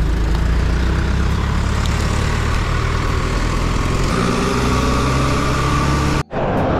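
Wind rushing over an action-camera microphone while riding a bicycle along a road, with a motor vehicle's engine running close by. The sound cuts out abruptly for an instant near the end.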